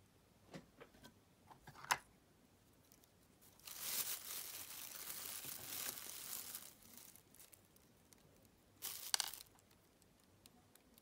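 A few small clicks and taps, then a plastic packet of tying material crinkling and rustling for about three seconds, and another short crinkle near the end.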